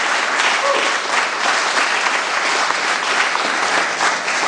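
Audience applauding in a hall, a steady dense clapping throughout.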